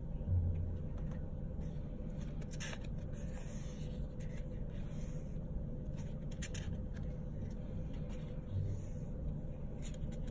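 Paper sticker sheets in a sticker book being handled and turned: brief rustles and soft brushing of paper, over a steady low hum.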